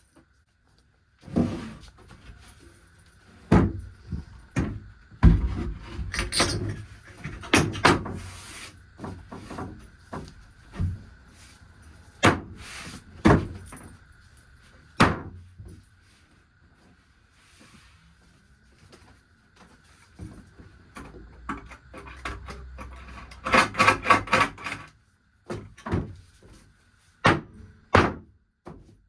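Irregular wooden knocks and thumps as 2x4 lumber is handled, fitted and fastened, with a quick run of knocks near the end. A faint steady whine sits underneath.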